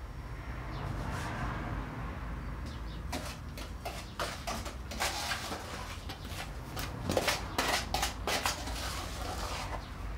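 A small trowel scraping and knocking in a plastic tub as sand is mixed into Portland cement mortar. It starts as a soft, gritty scrape, then from about three seconds in turns into a busy run of short scrapes and taps.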